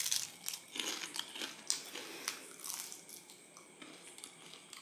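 Crunching of a bite of crisp, freshly deep-fried vegetable spring roll being chewed: the wrapper crackles in a quick run of crunches that fade after about three seconds.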